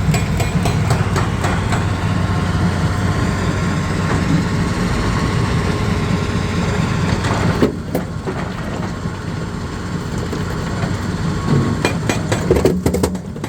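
Jaw rock crusher running, a loud steady low rumble with scattered knocks and clanks of stone being crushed; the noise drops noticeably about eight seconds in, and a flurry of knocks comes near the end.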